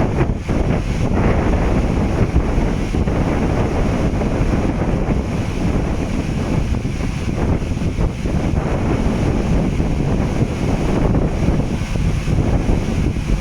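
Strong wind buffeting the microphone: a loud, steady, low rumbling roar of wind noise.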